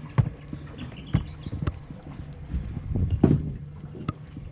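Irregular knocks and clunks on an aluminium boat as a crab pot rope is hauled in by hand, over a low steady rumble.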